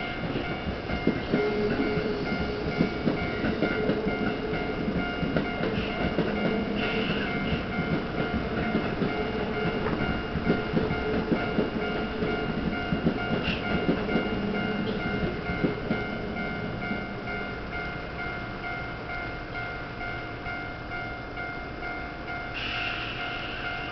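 Japanese level-crossing warning bells ringing steadily, with a train rolling slowly past on the near track, its wheels clattering over the rail joints and points; the clatter eases about two-thirds of the way through while the bells keep ringing.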